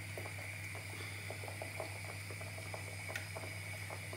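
Thick tomato stew bubbling in a large pot on the stove, with many small irregular pops and plops over a steady low hum. There is one sharp click about three seconds in.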